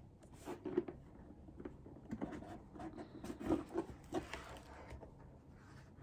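Soft, scattered rustling and small taps of paper and cardboard packaging being handled as a gift box is opened.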